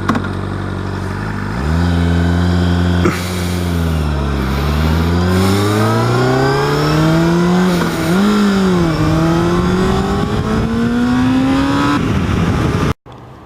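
Honda CBR600RR inline-four sportbike engine under way, accelerating: its pitch rises, dips once, then climbs steadily with a brief drop at a gear change about eight seconds in. The sound cuts off abruptly near the end.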